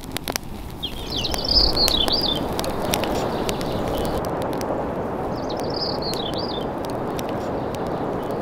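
Wood fire crackling in a small folding camp wood stove, with sharp pops and snaps that stop about four seconds in. A songbird sings two short, high warbling phrases over a steady rushing noise.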